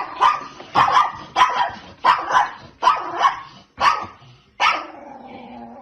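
A dog barking repeatedly, about ten sharp barks in quick succession, then one longer drawn-out note near the end.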